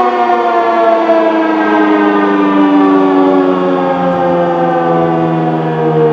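ASC T-135 AC outdoor warning siren sounding on a full alert test, one loud tone whose pitch falls slowly and steadily as the siren winds down.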